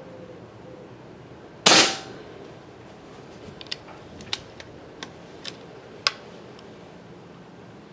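A regulated .25-calibre Evanix Rainstorm PCP air rifle fires once about a second and a half in: a sharp crack with a short tail. Several light clicks follow.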